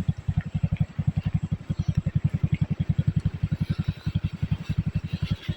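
Small engine running steadily with an even low beat of about ten pulses a second.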